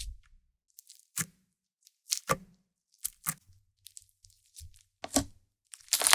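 Handmade slime being squeezed and pulled by hand: a handful of short, quiet clicks and pops spaced a second or so apart.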